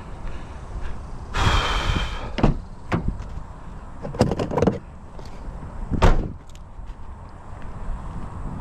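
Sheet metal of a scrap appliance being handled: a scraping metal screech about a second and a half in, then a series of clanks and bangs, the loudest near the six-second mark.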